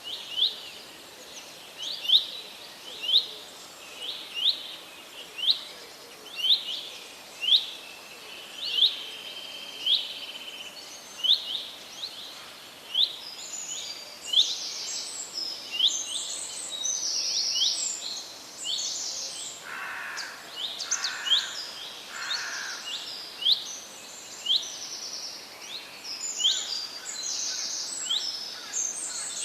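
Several birds calling outdoors. One bird repeats a short rising chirp about once a second. From about halfway through, other birds join with higher, faster trills, and there are three lower, harsher notes about two-thirds of the way in.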